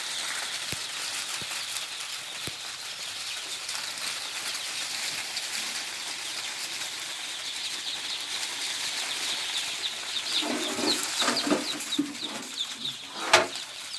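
A flock of Gavran / DP-cross chickens: a steady din of many short high peeps, with louder clucking in the last few seconds and a sharp knock near the end.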